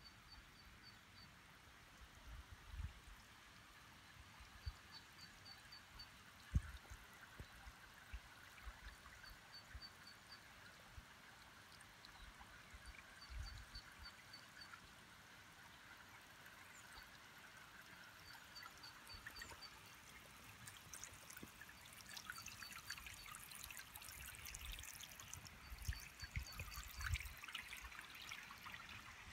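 Faint trickle of running water, with a bird repeating a quick series of four or five high notes every few seconds. Occasional low handling bumps, and scuffing footsteps on a paved path near the end.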